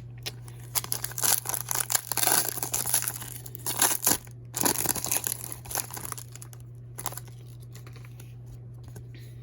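Wrapper of a trading card pack being torn open and crinkled in the hands, a dense run of crackling and tearing for several seconds that dies down after about six seconds. A steady low electrical hum sits underneath.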